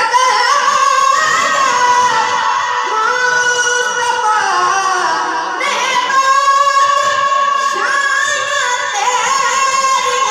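A young man's high voice singing an Urdu naat, a devotional song to the Prophet, into a microphone, with long held notes that slide up and down in pitch.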